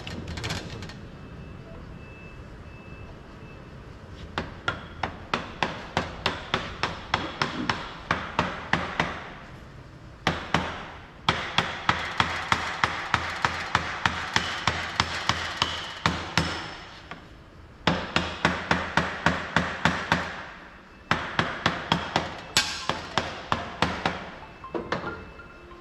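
Runs of rapid hammer blows, about three a second, on a part being fitted into a ZF 16 S 221 truck gearbox housing cover. The blows come in several bursts with short pauses between them.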